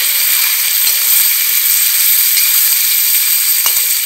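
Food frying in hot oil in a pan: a steady sizzling hiss with scattered small crackles.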